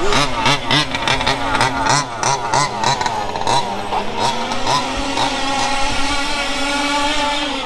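Small petrol engine of a large-scale RC car revving up and down, then running at a steadier pitch in the second half.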